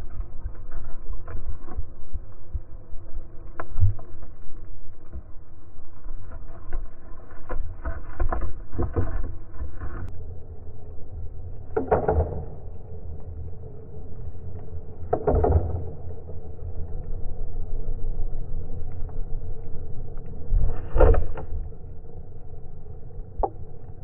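Steady low underwater rumble and water noise picked up by a camera submerged in the sea, with three short, louder rushes in the second half.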